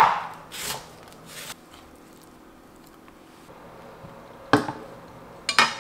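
Kitchen knife cutting lemon and ginger on a cutting board. There is a cut right at the start and two lighter strokes within the first second and a half, then a pause, and two sharp knocks near the end.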